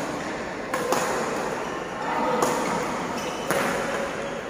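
Badminton rally: a racket strikes the shuttlecock with a sharp crack three times, roughly a second apart, over a background murmur of voices.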